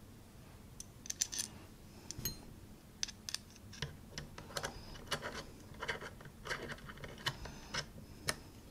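Light, scattered clicks and taps of small metal parts being handled: a metal SSD holder mount and its screws being fitted by hand onto a camera cage.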